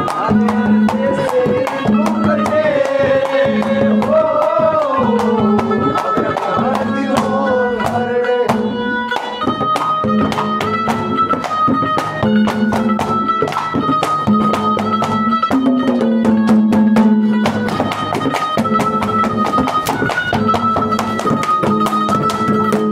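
Instrumental interlude of Haryanvi ragni folk music: a hand drum keeps a fast, even beat under a steady drone and a melody of held, repeating notes.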